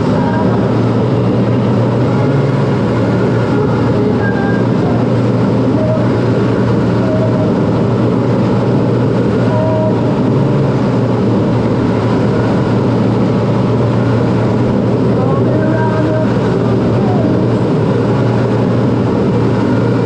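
Steady, loud drone of a CT-114 Tutor jet's engine and rushing air heard inside the cockpit in flight, with a strong low hum and no change in pitch.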